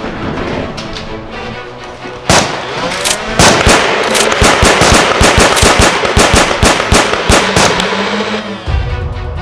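Rapid gunfire sound effects over action background music: one sharp shot about two seconds in, then a fast string of shots for about five seconds.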